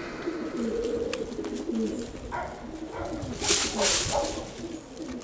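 Domestic pigeons cooing over and over in short low notes, with two brief whooshes of noise about three and a half and four seconds in.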